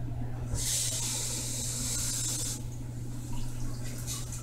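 Water running from a kitchen tap for about two seconds, starting and stopping sharply, over a steady low hum.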